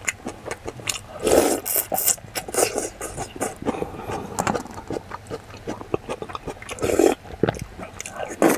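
Close-miked eating: chewing and smacking a mouthful of mixed rice, with small clicks and scrapes of a wooden spoon in a stainless steel bowl and two louder mouth noises, one about a second and a half in and one near the end.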